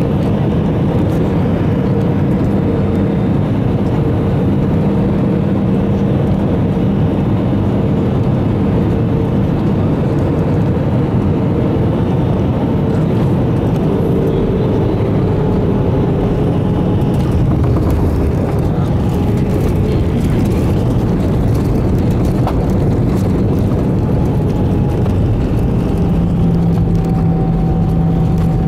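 Cabin noise in an Airbus A320 on final approach and landing, heard from a window seat over the wing: a loud, steady rush of engines and airflow with steady engine tones that drift in pitch as thrust changes. A strong new low engine tone comes in near the end.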